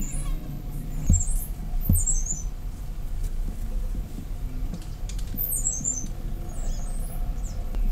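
A small bird calling: a quick run of very high chirps falling in pitch, given twice. There are two soft low knocks early on, over a steady low background hum.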